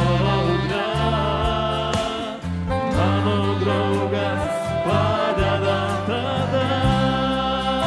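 A congregation and worship band singing a Christian hymn, with many voices over bass and drums. The verse is sung in Lithuanian.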